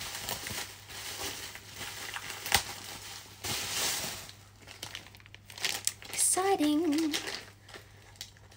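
Mail packaging being opened by hand: crinkling and rustling of wrapping, with a sharp click about two and a half seconds in. A brief wavering hummed voice sound comes about two thirds of the way through.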